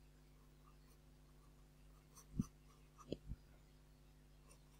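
Graphite pencil scratching faintly on paper in quick shading strokes, with a few soft thumps about two and a half and three seconds in.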